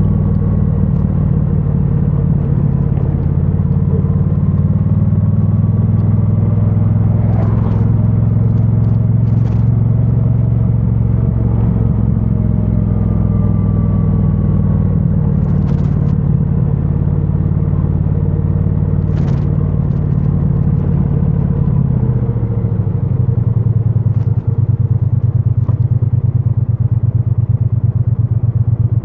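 2022 Triumph Bonneville T100's 900 cc parallel-twin on its stock exhaust, running steadily under way. About 22 seconds in the revs drop and it settles into a lower, pulsing beat, with a few brief clicks along the way.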